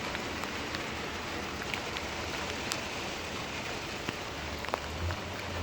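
Steady rain falling, with scattered individual drops ticking sharply close by. A low hum comes in near the end.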